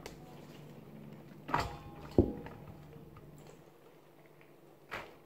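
Knocks of a plastic colander of boiled pasta against a stainless-steel pan as the pasta is tipped in: one about a second and a half in, a sharper, louder one just after, and a softer one near the end.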